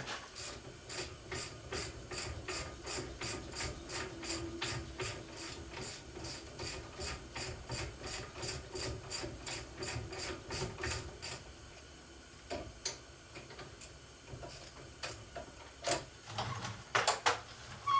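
Ratchet wrench with a 19 mm socket clicking steadily, about three clicks a second, as it backs out the brake caliper bracket bolts. The clicking stops about eleven seconds in, followed by a few scattered clicks and knocks of tools and parts.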